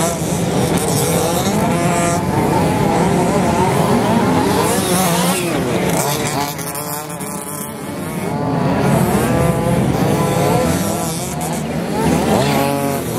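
Several radio-controlled off-road racing buggies run on a dirt track. Their small engines rev up and down in overlapping whines that rise and fall as they race past.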